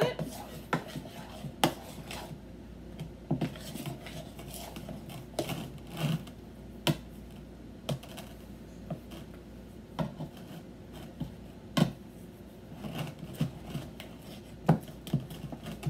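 A spoon stirring thick pudding in a plastic mixing bowl as whipped topping is mixed in. It scrapes steadily, with irregular clicks and knocks against the bowl.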